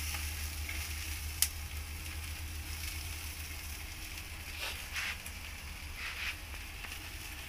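Pork slices sizzling over glowing charcoal on a small portable grill, a steady hiss and crackle. A single sharp click comes about a second and a half in.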